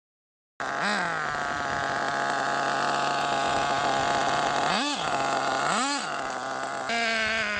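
HPI Trophy 3.5 nitro RC buggy's small two-stroke glow engine idling with a high, steady buzz, blipped up and back down about a second in, then twice more near five and six seconds. Later it runs at a slightly higher pitch that slowly drops and fades.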